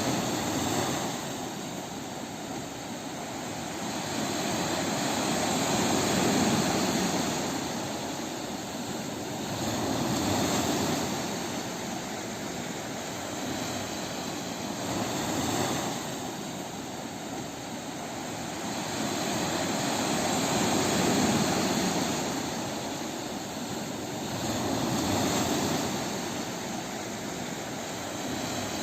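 Sea waves breaking on a beach: a steady rush of surf that swells and eases about every five seconds.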